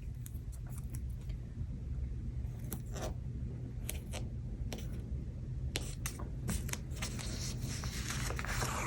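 Scattered soft taps, scrapes and rustles of paper sticker strips being peeled and pressed onto planner pages, over a steady low background rumble.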